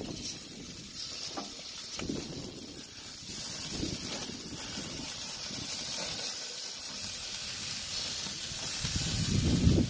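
Hamburger patties and chicken sizzling on a grill, a steady hiss, with a few low rumbles that are strongest near the end.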